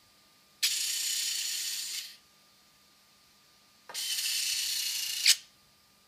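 The homemade electric retractable landing gear of a DJI F550 hexacopter whirring twice, about a second and a half each time, as the legs swing down and then back up. The second run ends in a short click.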